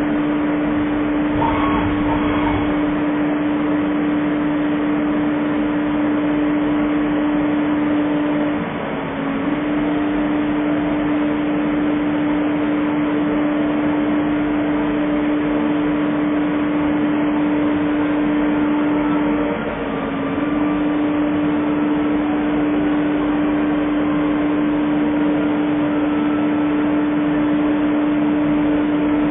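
Twin-spindle CNC lathe running, giving a steady mechanical hum with one strong pitch. The hum dips briefly in pitch and level twice, about eleven seconds apart, as the machine repeats its cycle.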